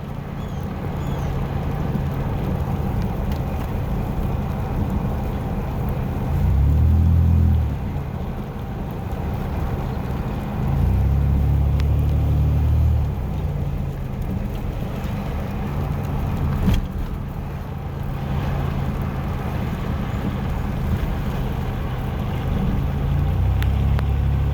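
A pickup truck driving on a wet road: a steady low engine and road rumble with a hiss of wet tyres. The low rumble swells three times, with a short knock about two-thirds of the way through.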